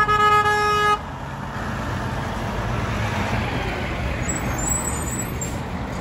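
Garbage truck horn sounding one steady blast that cuts off about a second in, followed by the truck's engine running as it drives past close by.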